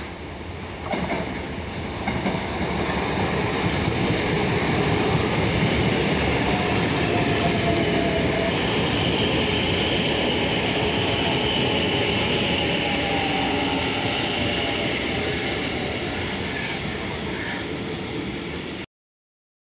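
Line Mitre CSR electric multiple-unit commuter train approaching and running past close by, its wheels rumbling on the rails, with a thin high wheel squeal in the middle. The sound cuts off suddenly near the end.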